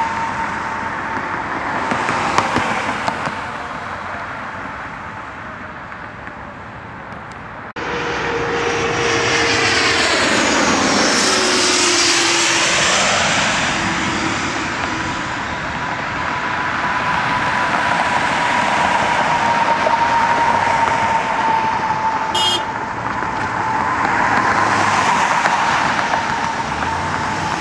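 Twin-engine business jets' turbofan engines: a steady high turbine whine over a broad roar. About 8 s in the sound jumps suddenly louder as a jet passes close by, its whine and roar sweeping in pitch, before settling back to steady jet-engine roar with another swell near the end.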